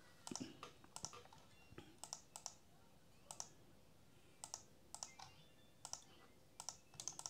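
Faint, irregular clicking of a computer mouse, single clicks and quick double clicks, while drafting in pattern-making software.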